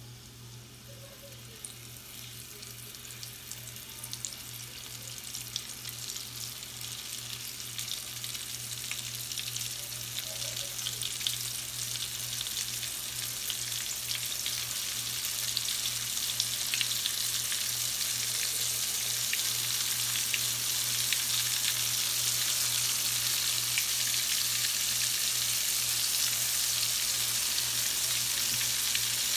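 Breaded shrimp frying in hot oil in a cast-iron skillet: a crackling sizzle that grows steadily louder as more shrimp go into the oil.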